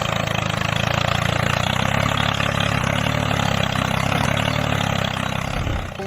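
Tractor engine idling steadily with a fast, even chugging flutter. It cuts off just before the end.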